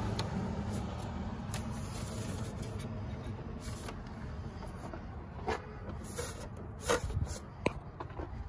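Range Rover L322's V8 engine idling steadily just after a cold start, heard from the open engine bay, with a few light knocks over it in the second half.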